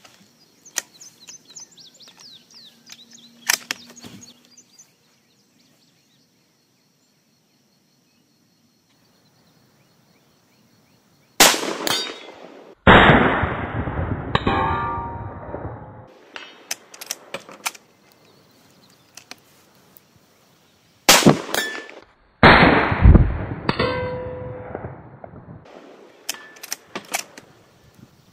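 Two shots from a .308 rifle, each followed by a loud clang of a steel target that rings down over a couple of seconds. The first comes a little before halfway, after a long quiet stretch, and the second about three-quarters of the way in. Another shot cracks right at the end.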